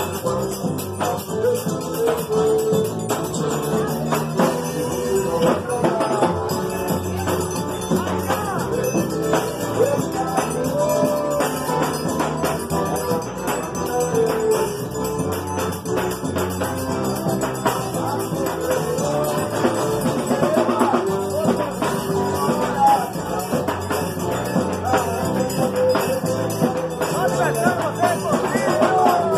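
Live forró band playing: accordion, guitars and a zabumba bass drum, with jingling hand percussion keeping a steady dance rhythm.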